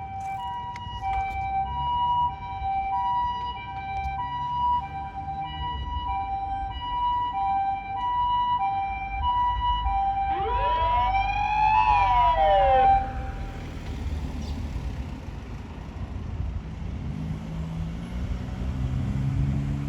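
Japanese ambulance siren sounding its two-tone "pee-poh", alternating steadily between a high and a low tone. A rising-then-falling wail joins in about ten seconds in. Both siren sounds are switched off about thirteen seconds in, leaving the low drone of the vehicle running.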